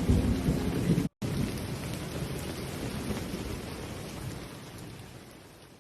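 Heavy tropical rain pouring down, with a low rumble of thunder under it at first. The sound drops out briefly about a second in, then the downpour carries on and slowly fades away.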